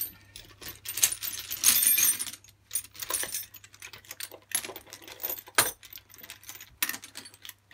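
Metal sockets and hand tools clinking and rattling irregularly as hands rummage through a tool bag.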